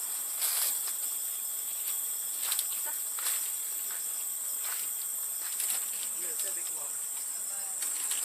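Steady, high-pitched trilling of night insects such as crickets, unbroken throughout, with scattered soft clicks or rustles.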